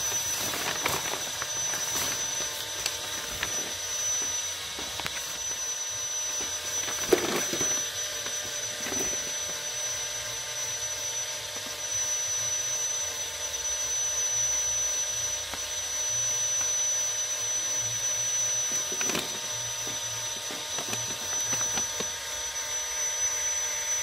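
Steady background hiss with a thin high whine, and over it an ink brush dabbing and sweeping on paper, with a few soft knocks, the strongest about a third of the way in.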